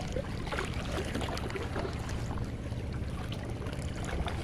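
A boat's engine running with a steady low hum, with scattered small knocks and rubbing of a hand on the microphone.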